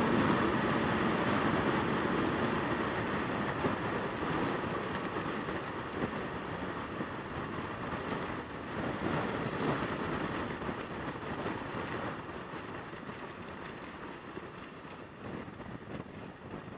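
Yamaha YZF600R Thundercat sport bike at highway speed, heard as a steady rush of wind and engine and road noise that grows steadily quieter.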